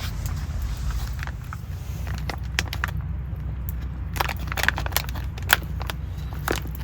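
Scattered clicks and crackles, growing busier about two seconds in, over a steady low hum.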